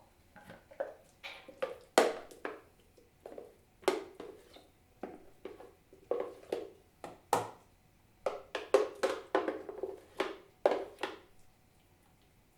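A kitchen utensil knocking and scraping as thick blended cranberry-cashew mixture is transferred into a cake ring. Irregular sharp knocks mixed with softer wet plops, stopping about a second before the end.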